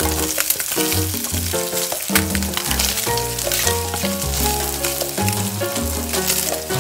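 Diced Spam sizzling and crackling in hot oil in a nonstick frying pan as it is stirred with a wooden spatula, under background music with a steady bass line.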